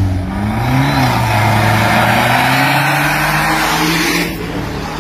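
Two street drag-race cars launching from the line and accelerating hard past, engine pitch climbing steadily under full throttle with a rush of exhaust noise. The sound drops off suddenly about four seconds in as they pull away.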